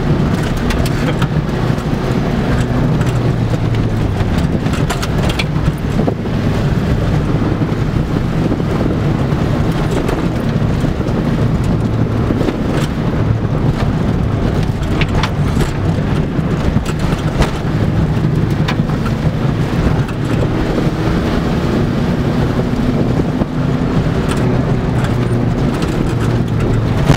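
Opel Corsa 1.5D's 1.5-litre diesel engine running steadily as the car drives along a gravel track, heard from inside the cabin, over the rumble of tyres on the loose surface. Occasional short knocks and rattles come through.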